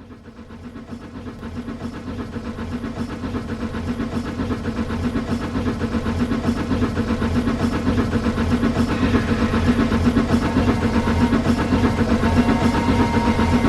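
Old train running on the rails with a fast, even rhythmic beat. It grows steadily louder over the first five seconds or so as it approaches, then holds loud and steady.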